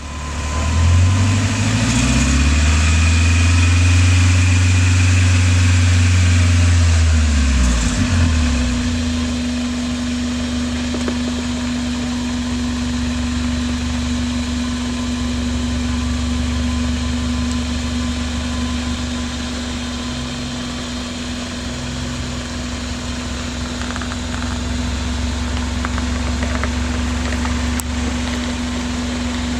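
1981 Toyota Hilux's 3RZ four-cylinder engine pulling a rock climb in first gear at a 511:1 crawl ratio. It revs up over the first couple of seconds, holds there until about seven seconds in, then drops back and runs steadily near idle while the truck keeps crawling.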